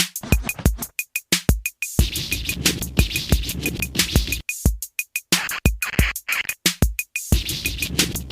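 Background music: a hip-hop style drum-machine beat with regular sharp hits and short scratch-like sweeps.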